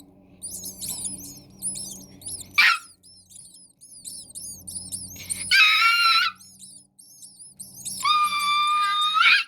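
Nestling baby birds begging in a constant stream of thin, very high, rapid chirps. A quick upward whistle cuts in about two and a half seconds in, and two long, loud, high held notes, the second longer, come near the middle and near the end.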